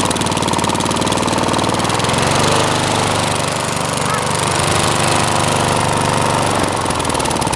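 Gasoline engine of a push lawn mower running loud and steady. Its note changes about two seconds in as the throttle linkage, which has lost its control lever, is worked by hand.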